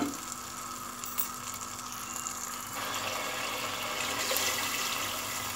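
Fried spice masala sizzling gently in a pot; about three seconds in, a glass of water is poured into it, splashing and gushing into the hot masala.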